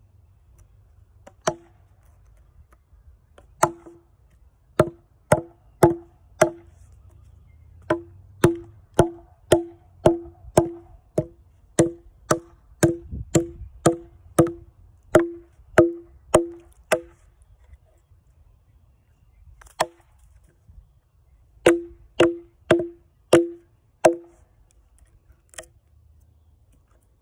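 Hammer blows on a chainsaw-scored walnut log, knocking out the blocks left between the kerfs. There is a long run of sharp, ringing strikes at about two a second, then a pause, then a shorter run of about five.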